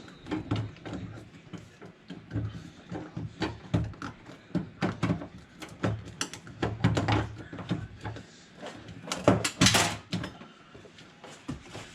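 Metal clicks, taps and knocks of a tool working on a door handle screw inside a truck door shell. About nine and a half seconds in comes a louder, brighter metallic rattle: the 10 mm screw dropping down inside the door.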